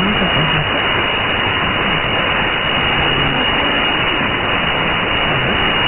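Elad FDM-S2 software-defined radio tuned to a weak shortwave broadcast near 9435 kHz: steady static and hiss dominate, with a voice only faintly audible underneath. The signal is weak, consistent with a geomagnetic storm degrading shortwave propagation.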